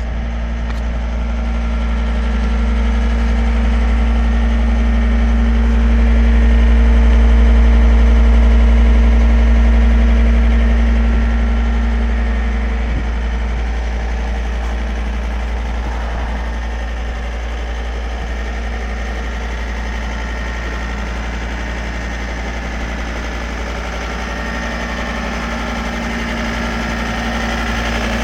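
Diesel engine of a 2009 John Deere 328 skid steer idling steadily, a deep even rumble that swells slightly partway through.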